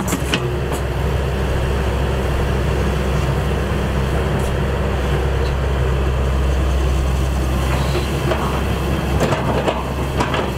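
Diesel engine of a Shantui ME210LC-1 crawler excavator running steadily while it digs and swings, with a few clanks and knocks, most of them toward the end.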